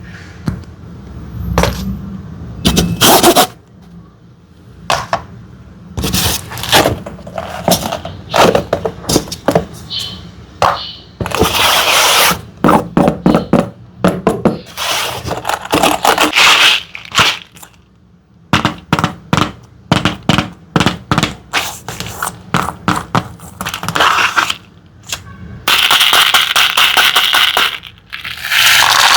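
Rapid runs of sharp clicks, crackles and scrapes from small hard candies and slime being handled and mixed, with a few longer stretches of dense crackling.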